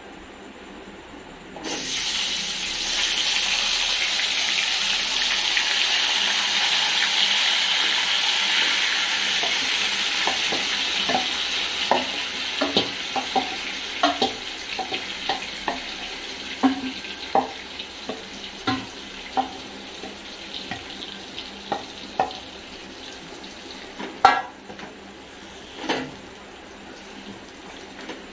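Cold marinated mutton hitting hot oil in a metal wok: a loud sizzle starts about two seconds in and slowly dies down. A wooden spatula then stirs the meat, with many short knocks against the pan, the loudest two near the end.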